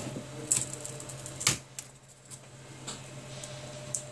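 Cracked tablet touchscreen glass and its thin frame strip being handled and lifted away: a few sharp clicks and taps, the loudest about half a second and a second and a half in, with lighter ticks after. A steady low hum runs underneath.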